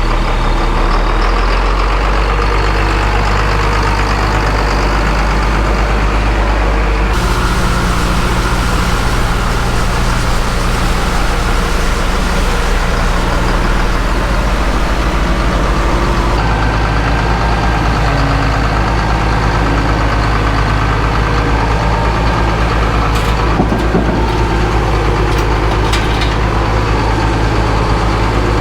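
Heavy diesel engine running steadily, its note changing abruptly about seven and sixteen seconds in.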